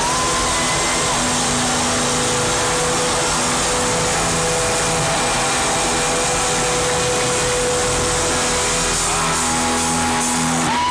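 A live rock band playing at full volume, recorded on an overloaded phone microphone: a dense, distorted wash of amplified guitars and drums with long held guitar notes and a few gliding notes.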